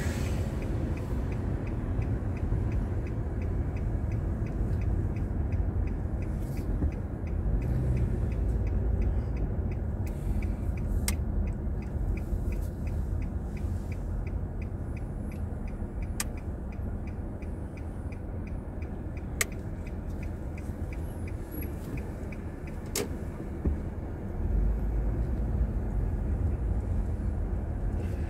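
Car cabin noise in slow stop-and-go traffic: a steady low engine and road rumble that grows louder about 24 seconds in as the car moves off. Under it, a faint regular ticking runs through the first two-thirds, and there are a few sharp single clicks.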